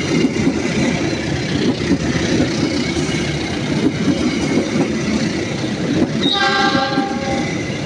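Passenger train coaches of the Pangrango service rolling past close by: a steady rumble of steel wheels on the rails with irregular clatter. About six seconds in, a high pitched tone sounds for about a second over the rumble.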